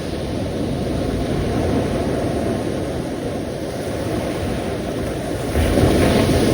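Sea waves surging and washing in, a steady low rush that swells into a louder breaking wave about five and a half seconds in.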